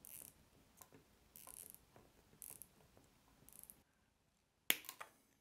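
Nylon cable tie being pulled tight through its ratchet head in a few faint short zips, then a sharp snip near the end as side cutters trim off the tail.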